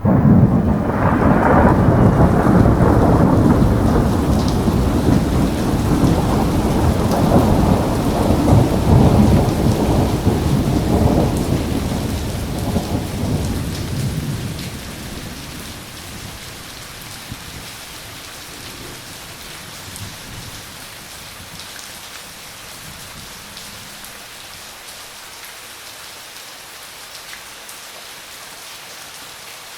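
Thunder rumbling long and low over steady rain, the rumble dying away about halfway through and leaving the rain falling on its own.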